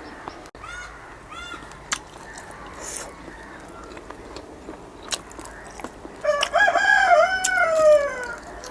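A rooster crowing once, about six seconds in: a wavering call ending in a long falling note that lasts about two seconds. A few short high chirps come before it, in the first second and a half.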